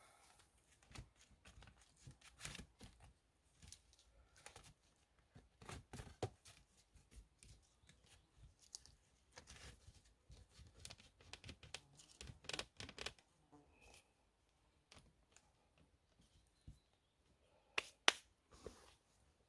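Faint irregular rustling and crackling with scattered sharp clicks and snaps, the loudest a couple of sharp cracks near the end.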